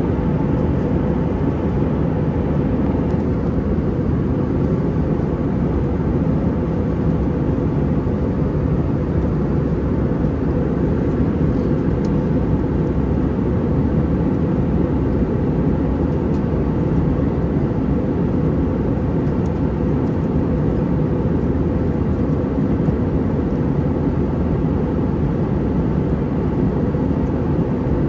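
Steady, even cabin noise of an Airbus A319-131 under power, heard inside the cabin: the twin IAE V2500 engines running and the airflow around the fuselage.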